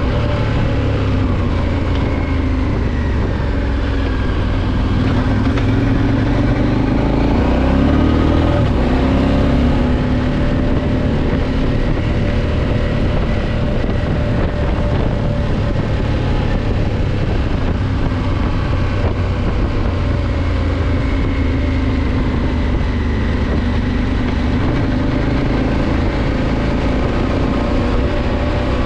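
Adventure motorcycle engine running on a gravel trail, its pitch rising and falling with the throttle and climbing about seven to nine seconds in, over a steady rushing noise of wind and tyres.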